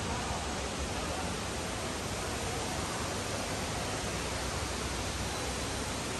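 Steady, even rushing ambience inside a large glass conservatory dome, with no distinct events.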